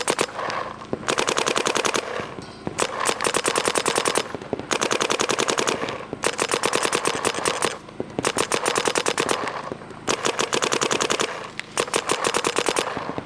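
Planet Eclipse Geo R5 and Geo4 paintball markers firing in ramping mode: strings of rapid shots, each one to two seconds long, with short pauses between.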